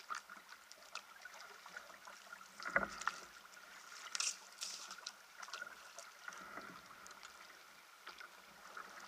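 Kayak paddling: paddle blades dipping and water dripping and splashing off the blade, with a thump about three seconds in and a brighter splash of falling water a second or so later.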